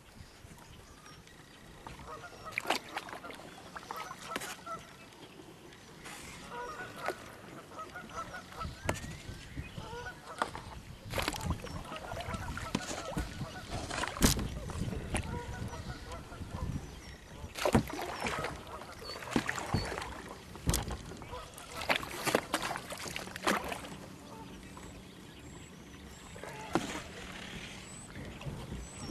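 Kayak moving through lily pads and marsh plants: irregular paddle strokes and splashes, with plants brushing the hull. Waterfowl call now and then in the background.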